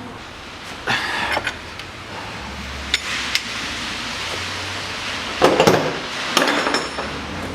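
Steel hand tools clinking and knocking on the camshaft gear as a 27 mm wrench holds the camshaft and a 17 mm socket loosens the gear bolt. There are several short bursts of metal clatter, the loudest a little past halfway.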